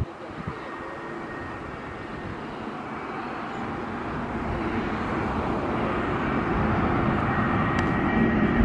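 Jet engines of an Airbus A320neo-family airliner on final approach: a steady rumble with a thin high whine, growing louder as the aircraft draws closer.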